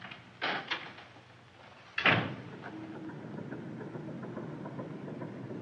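A door clicking shut, then a sudden loud bang about two seconds in, followed by the steady, ticking din of mill machinery.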